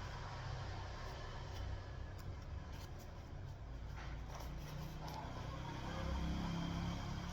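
Faint rustling and a few light clicks of packaging being handled and opened, over a steady low rumble.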